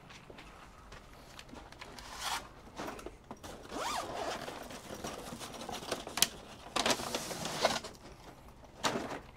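A series of short zipper-like rasps and rustling handling noise, irregular and in several separate pulls.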